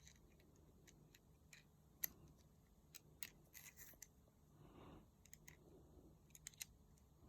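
Near silence with scattered faint clicks and ticks from the small parts of a camera ball head and quick-release clamp being handled and tried together. One sharper click comes about two seconds in, and a few more follow close together a little later.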